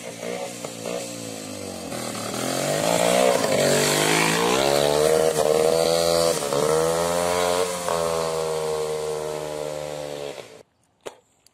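WSK 125's two-stroke single-cylinder engine running under load, revving up and down as the bike rides over rough ground. It cuts off suddenly near the end.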